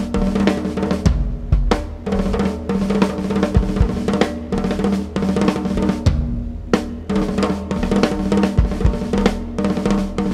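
Drum kit played with sticks in a fast, dense solo improvisation: rolling strokes across the toms and snare with bass drum hits. A steady pitched drone runs underneath.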